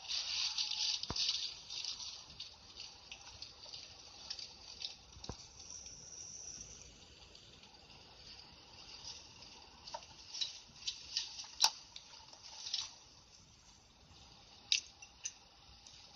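Cabin sound of an Isuzu SDG-LR290J1 city bus: a faint high hiss with scattered clicks and ticks, and a few sharper clicks in the second half.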